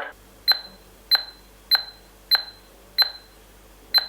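Keypad beeps from the HA802 smart door lock: a steady series of short high beeps, about one every 0.6 s, one for each key press as the admin password is entered.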